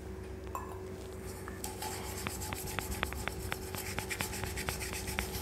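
Hands rubbing a tarnished silver tumbler with a gritty polishing paste, a scratchy scrubbing sound with small ticks a few times a second, starting about a second and a half in.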